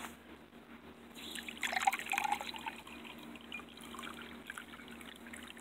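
Liquid for a bleach and muriatic acid mixture being poured into a glass beaker: a trickling pour, loudest from about one to two and a half seconds in, then fainter.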